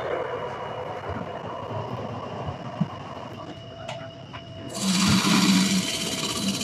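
CNC machining center running its 8-inch, 13-insert shell mill at 250 RPM as it feeds toward the engine block deck. About five seconds in, the inserts bite into the deck and a loud, rough face-milling noise starts and keeps going.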